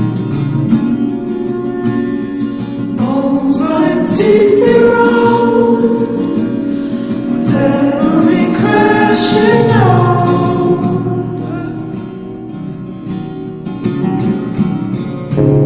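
Slow song with acoustic guitar and sung vocals. A sung phrase comes in about three seconds in and another around eight seconds, over a steady guitar accompaniment.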